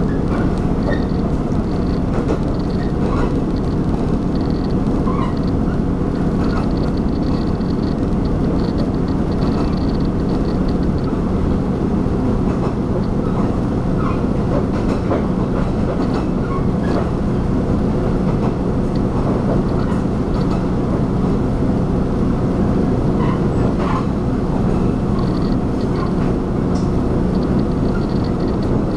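Steady running rumble of a Taiwan Railway diesel train heard from inside the carriage, with faint scattered clicks and a faint high tone that comes and goes.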